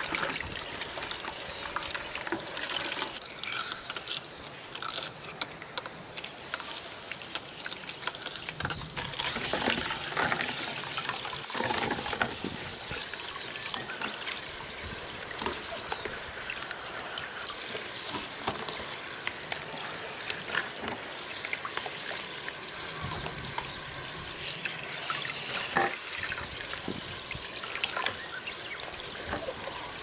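Handheld shower head spraying water over plastic vacuum-cleaner parts into a plastic bucket: a steady hiss and splash, with small knocks now and then as the parts are handled.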